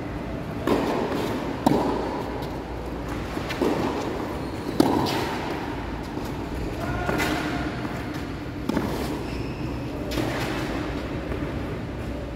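Tennis balls being struck by rackets and bouncing on the court: a series of sharp knocks every one to two seconds over a steady low rumble.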